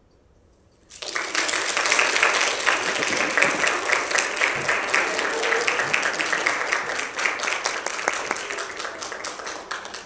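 Audience applauding: many people clapping, starting suddenly about a second in and dying away near the end.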